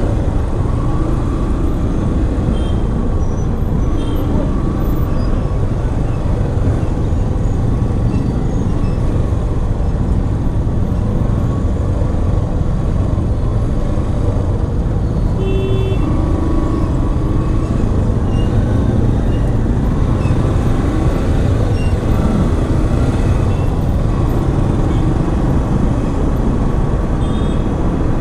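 Slow, jammed city road traffic heard from a moving motorcycle: a steady low rumble of engines and road noise, with a vehicle horn tooting briefly about halfway through.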